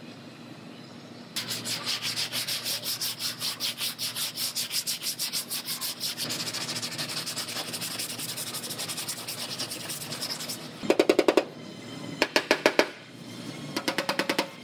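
Body filler on a car's quarter panel being sanded by hand, in quick, even back-and-forth strokes that start about a second and a half in. Near the end come three short rapid runs of sharp taps, the loudest sound here, as a body hammer works the metal at the edge of the filler.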